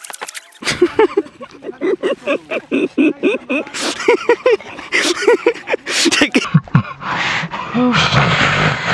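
A puppy giving a fast run of short yips and whimpers, about three or four a second, with a few sharp clicks among them. About seven seconds in, a rustling hiss lasting a couple of seconds.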